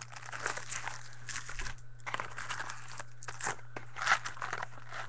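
Wrappers of 2013 Panini Contenders Football card packs crinkling and rustling as hands pull packs from the box and handle them, with a rapid, irregular run of crackles.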